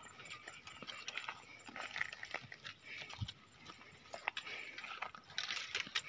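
Footsteps through dry grass and weeds, with dry stalks rustling and crackling against the body in a scatter of small irregular clicks; the rustling grows louder near the end.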